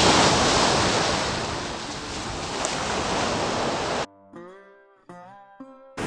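Waves breaking in the surf with wind on the microphone. About four seconds in the surf cuts out abruptly for about two seconds of music with changing notes, then the surf comes back.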